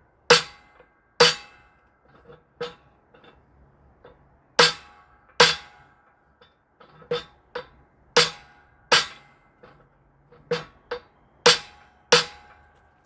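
Hammer blows on metal: about a dozen sharp strikes, mostly in pairs, each leaving a short ring. They are smacks on the shoulder of a transmission part that is still too tight, to loosen it up.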